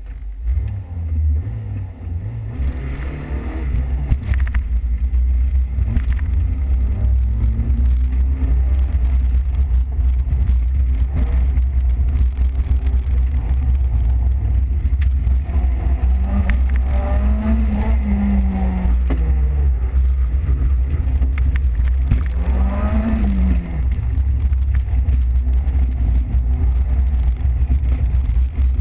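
Peugeot 205 XS heard from inside the cabin as it pulls away about two seconds in and is driven hard: the engine revs rise and fall again and again through gear changes and corners over a constant heavy low rumble.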